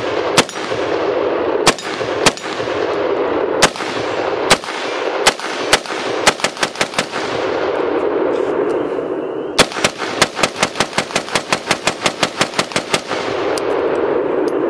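Sig Sauer MCX Rattler short-barreled rifle in 5.56 firing: single shots at first, a quick cluster of several near the middle, then a long rapid string of about twenty shots at roughly six a second. Each shot is followed by a long rolling echo that fills the gaps between shots.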